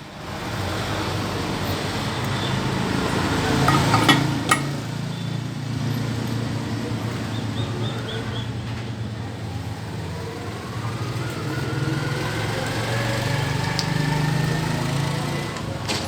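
A small engine running steadily, its pitch rising slowly near the end, with a couple of sharp clicks about four seconds in.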